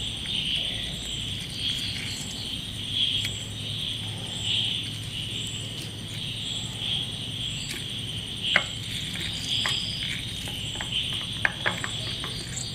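Steady, high-pitched insect chorus, likely crickets, pulsing slightly, over a low hum. A few short clicks come mostly in the second half.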